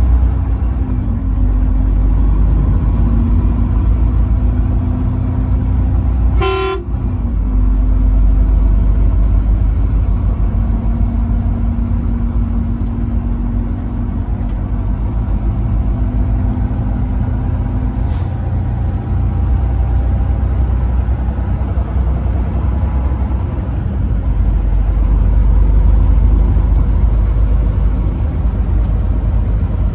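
Truck driving, a steady low engine and road drone, with one short horn toot about six and a half seconds in.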